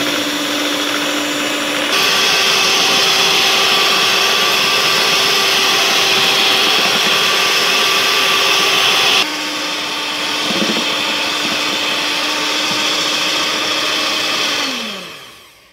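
Electric mixer with twin beaters running steadily, whipping egg whites to stiff peaks. It steps up to a higher speed about two seconds in and drops back to a lower speed at about nine seconds. Near the end it is switched off and winds down with a falling pitch.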